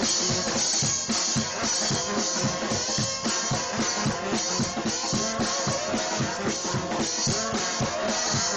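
Gospel shout band music: horns playing a sliding, sustained melody over a driving drum kit beat.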